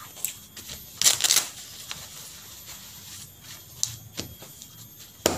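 Handling noise from a nylon riding jacket with a parachute-like fabric: a few short rustles and scrapes as it is moved about, the loudest about a second in.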